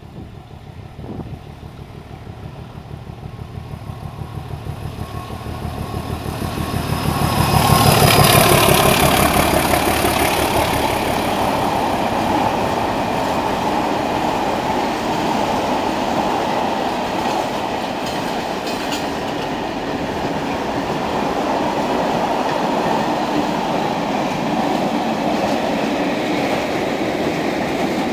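A ČSD class 751 diesel locomotive approaches and passes, its engine's low, fast throb growing louder up to about eight seconds in. After that comes the steady rolling noise of the passenger coaches running by on the rails.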